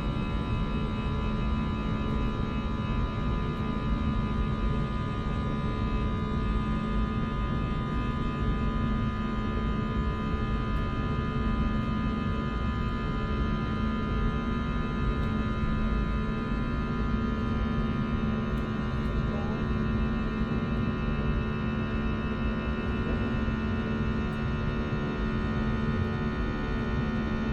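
Cabin noise of an Airbus A321 airliner in flight: the steady rush of the jet engines and airflow with a strong low hum and several high, steady whining tones from the engines, which drift slightly lower about halfway through.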